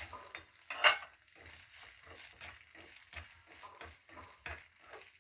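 Spoon stirring and scraping in a kadai of oil and fried masala, with a light sizzle underneath and repeated short scrapes a few times a second. A sharp clank about a second in is the loudest sound.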